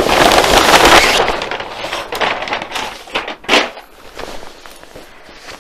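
Paper courier bag crackling and rustling loudly as it is torn open and handled for about the first second, then softer scattered crinkles, with one sharp rustle about three and a half seconds in, as a padded coat is pulled out of it.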